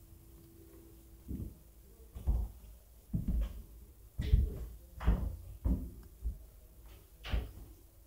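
Footsteps on a wooden floor: a run of dull thumps with light scuffs, about one to two a second, starting about a second in.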